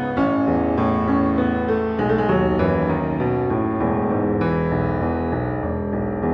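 Instrumental background music played on piano, a slow piece with notes and chords changing every second or so.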